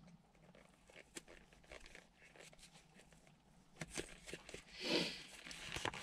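Faint clicks and rustling as the plastic surround and fabric of a car's gear gaiter are handled and worked free, with a louder rustle about five seconds in.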